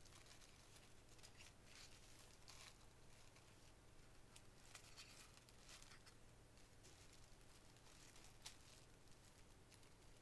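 Near silence with faint, scattered rustles of a bath bomb's crinkly plastic wrapping being handled, and one small click near the end.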